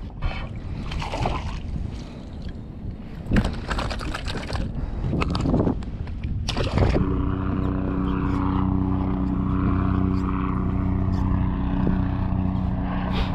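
Knocks, clicks and rustling as a just-caught fluke is handled and unhooked over the side of the kayak. About seven seconds in, a Watersnake electric trolling motor starts and runs with a steady hum.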